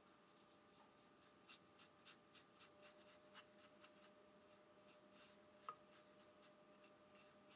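Very faint scratching and light ticks of a round watercolor brush stroking across paper, starting about a second and a half in, over a faint steady hum.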